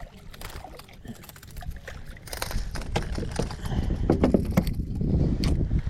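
Scattered knocks, clicks and small splashes on a fishing kayak, with a low rumble that builds and grows louder about halfway through.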